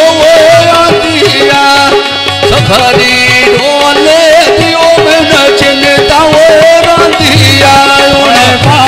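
Man singing a South Asian folk song, his voice wavering and ornamented, over a harmonium's steady held reed chords, with a hand drum keeping a beat. A second man's voice joins near the end.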